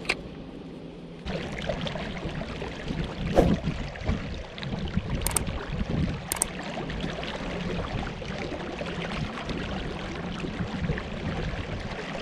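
Water washing and lapping against a kayak hull in a steady noisy wash, with a knock about three and a half seconds in and two sharp high clicks a second apart a little later.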